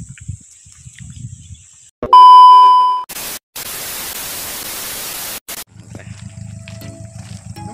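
Edited TV test-pattern transition: a loud steady beep for about a second, then about two seconds of loud television static hiss that cuts out briefly, after which background music with a steady beat begins. Faint outdoor ambience precedes the beep.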